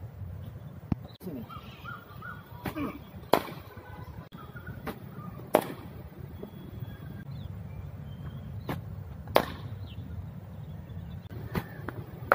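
Sharp cracks of a hard cricket ball being struck and landing during net practice, about eight at irregular intervals, three of them much louder, about three, five and a half, and nine and a half seconds in.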